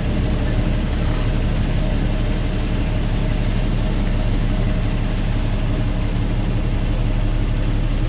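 Kenworth W900's diesel engine running steadily, heard from inside the cab as the truck rolls slowly.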